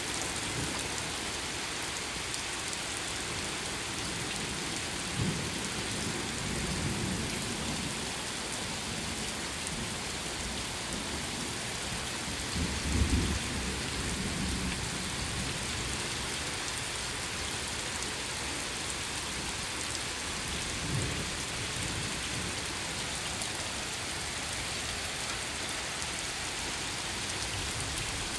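Steady rain falling on pavement, with low rumbles of thunder swelling a few times, the loudest about halfway through.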